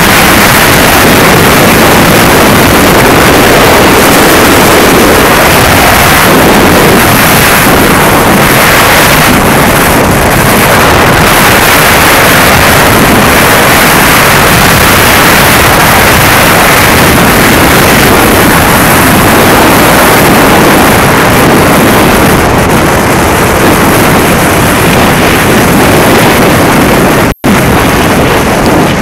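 Loud, steady wind noise buffeting the microphone of a camera on a skier racing downhill at speed, mixed with the skis running over hard-packed snow. The sound cuts out for an instant near the end.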